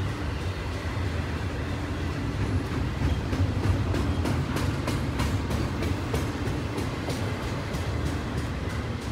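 Double-stack intermodal container train's well cars rolling by: a steady low rumble of wheels on rail with irregular clicking and clacking, busiest and loudest around the middle.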